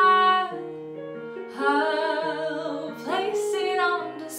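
A woman singing a show tune over a sustained instrumental accompaniment: a held note ends about half a second in, she sings another wavering phrase, takes a quick breath just after three seconds, and sings on.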